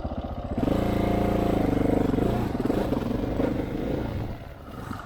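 Motorcycle engine pulling away under throttle. About half a second in its note rises and grows loud, and it wavers in pitch a couple of seconds in as the revs change. It eases off near the end.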